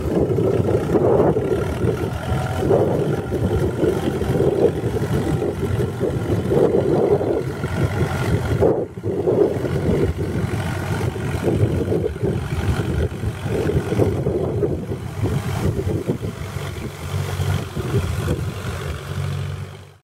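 Tractor engine running under load as it pulls a rotary tiller through dry soil, a steady drone that dips briefly about nine seconds in.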